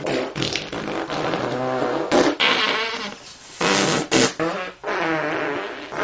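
A run of fart sound effects: several separate buzzing blasts of varying length, their pitch wavering, with short breaks between them.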